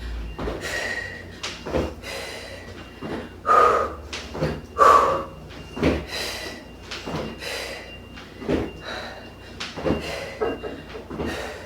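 A person working out hard: loud exhalations and panting breaths mixed with irregular knocks and thuds of body and feet moving on the floor.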